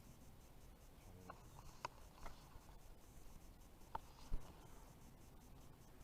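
A few faint, scattered clicks and light knocks over a quiet background, with one stronger dull thump about four seconds in, from handling a carp fishing pole while playing a hooked fish.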